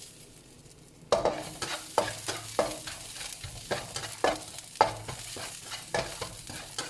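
Stirring a tempering of chopped ginger, cumin, mustard seeds and curry leaves as it fries in hot oil in a pan: a steady sizzle with sharp stirring strokes roughly twice a second, starting about a second in.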